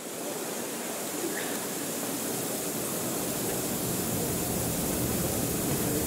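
Steady, even hiss of outdoor background noise, like rushing air or spray, growing slightly louder, with no distinct events.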